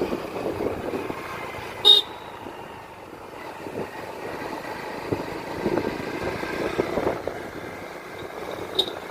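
Hero Splendor motorcycle running on the road, with a short horn toot about two seconds in and a fainter toot near the end.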